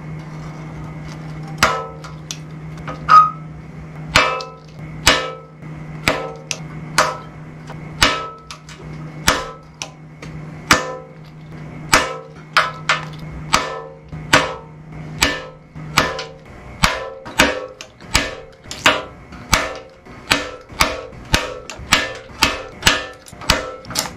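Slide hammer of a paintless dent repair puller knocking repeatedly against its stop, with a metallic ring, tugging a glued tab to pull a dent out of a steel motorcycle fuel tank. The knocks come about once a second at first and speed up to about two a second about two-thirds of the way through.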